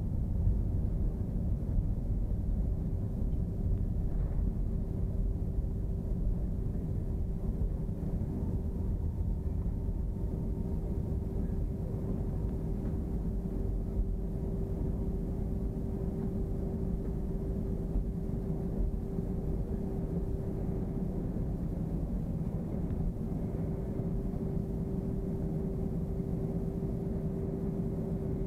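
Airbus A321 cabin noise while rolling on the ground just after landing: a steady low rumble of the wheels and engines with a constant hum, slightly louder in the first few seconds and then even.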